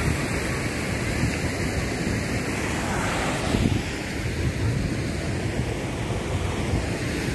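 Steady rush of river water over rocky rapids, mixed with wind buffeting the phone's microphone.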